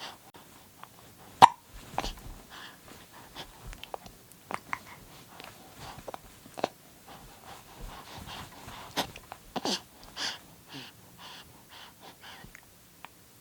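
Young baby hiccupping: short, sudden hiccups at uneven intervals, with small breaths between.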